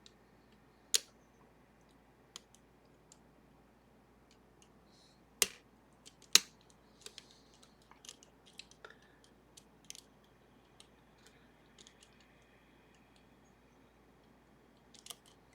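Irregular small clicks and ticks of picking tools working the serrated levers of a Sargent and Greenleaf 4440 safety deposit box lever lock, with a few sharper clicks about a second in and around five and a half and six and a half seconds.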